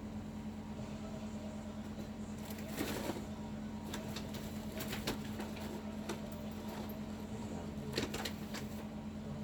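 Steady low machine hum with a constant tone, broken by a short rustle about three seconds in and a few brief faint clicks after it.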